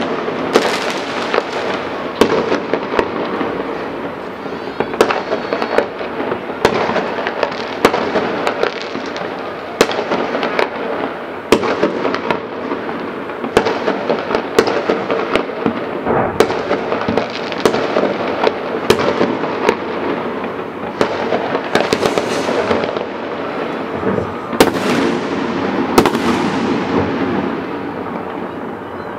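Aerial fireworks display going off continuously: dense crackling with sharp, loud bangs every second or two.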